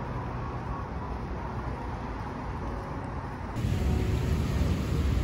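Steady low outdoor rumble of ambient noise without any clear tone, stepping up abruptly in loudness about three and a half seconds in.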